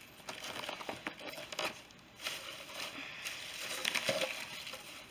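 Brown crinkle-cut shredded paper filler rustling and crinkling as a hand rummages through it in a cardboard box. It comes in two spells, with a short lull about two seconds in.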